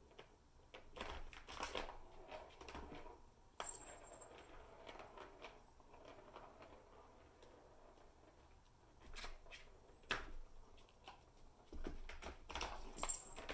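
Plastic balls and kittens' paws knocking and clicking against a Catit Senses Super Roller Circuit plastic ball track: scattered light clicks, knocks and rattles, with a quieter stretch in the middle and a busier patch near the end.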